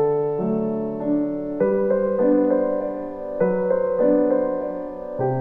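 Background music: a soft electric piano playing slow sustained chords that change about once a second.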